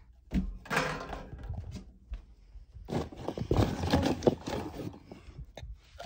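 Handling noise of toys and containers being moved about: dull thunks and rustling in two bursts, about half a second in and again around the third to fourth second.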